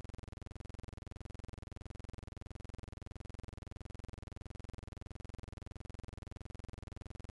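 Background music: a steady, unchanging sound with a fast, even pulse.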